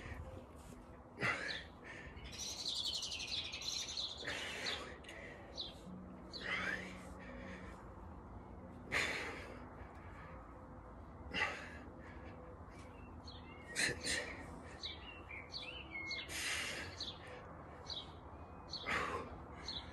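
Birds chirping in the background, with a short swish about every two seconds in time with one-arm rows lifting a bag weighted with tins.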